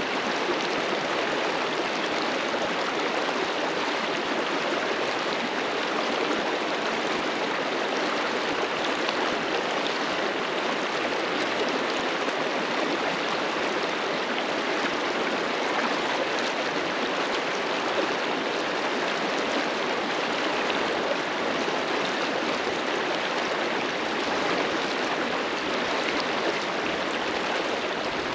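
River water rushing and splashing over rocks in a steady, even roar of white noise.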